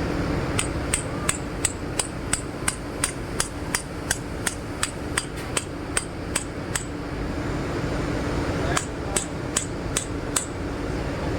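Hammer tapping on metal in quick even strokes, about three a second: a run of around nineteen taps, a pause of two seconds, then six more. Typical of driving a conveyor bearing into its seat on the shaft.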